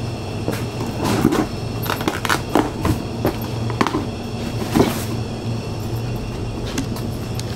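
A handful of short crinkles and knocks from a plastic bag round a packaged pork-loaf roll as it is handled, over a steady low hum of refrigerated display cases.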